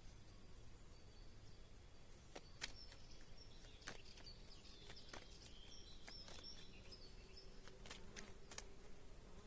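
Near silence with faint high bird chirping in the background and a few soft clicks of playing cards being handled.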